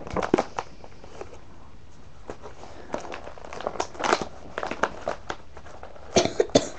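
Plastic toy blister packaging being handled and pried open: crinkling with scattered sharp clicks and crackles, busiest about four seconds in and again near the end.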